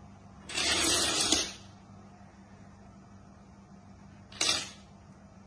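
A row of wooden dominoes toppling in a fast chain, a rapid clatter lasting about a second, followed by a second, shorter clatter about four and a half seconds in.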